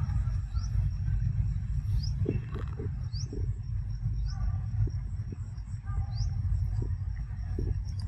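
Outdoor ambience: a steady low rumble with short, high, rising chirps about once a second and a faint steady high insect whine. A few faint mid-pitched calls and soft ticks come in the middle.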